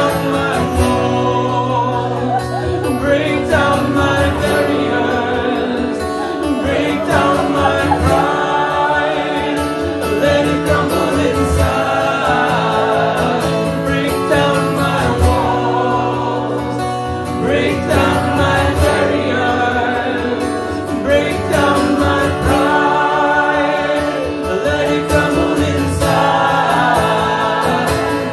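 A man singing while playing an acoustic guitar, a solo performance through a microphone.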